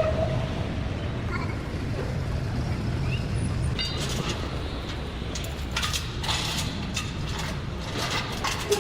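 A steady low mechanical rumble with a run of short metallic clicks and knocks in the second half.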